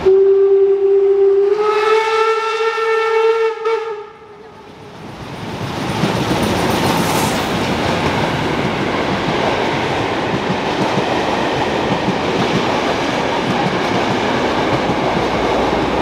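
Steam locomotive whistle blowing one long blast of about four seconds, its pitch stepping up slightly partway through, then the train running past with a loud, steady rush of wheel and rail noise from about five seconds in.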